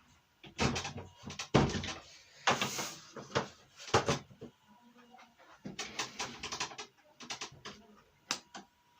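Irregular clicks, knocks and rustles of a power cable being plugged in and a Marshall MG15GFX combo amp being handled, busier in the first half.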